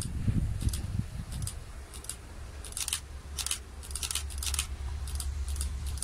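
Low steady rumble of the distant Class 59 diesel locomotive approaching, growing toward the end, with short high scratchy chirps repeating irregularly over it.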